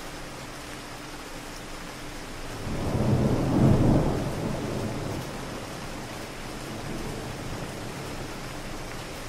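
Steady city rain, with a distant thunder rumble that swells about three seconds in, peaks near four seconds and then fades slowly.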